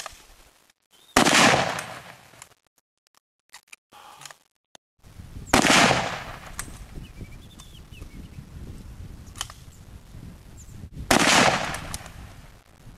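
Three rifle shots, several seconds apart, each ringing out for about a second after the crack.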